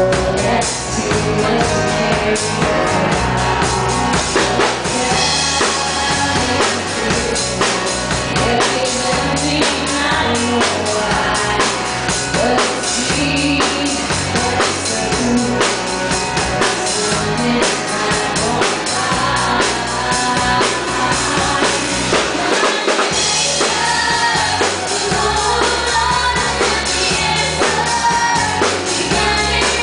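Live pop-rock band playing: a woman singing lead over a drum kit and guitar, loud and steady throughout.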